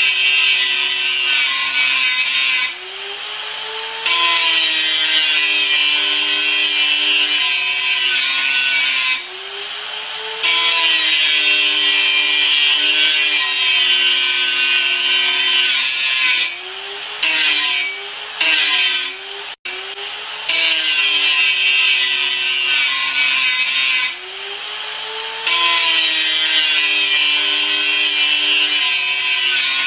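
Angle grinder working in long passes, a bright hiss over a motor whine that sags under load, with short breaks of a second or two, about five in all, where the hiss drops away and the motor whine climbs back up as the disc comes off the work.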